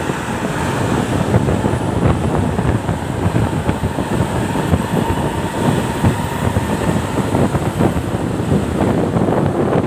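Intercity coach driving along, heard from on board: steady engine and road noise with frequent small knocks and rattles.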